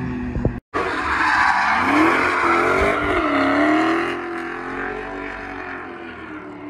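A Dodge Charger drifting with its rear tyres spinning and squealing loudly, its engine revving and falling with the slide, easing off after about four seconds. At the very start, a passing sports car's engine is heard for half a second before it cuts off abruptly.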